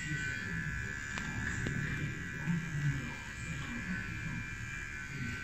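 Cordless electric beard trimmer running steadily with a high whine as it cuts through a beard, with two light clicks just over a second in.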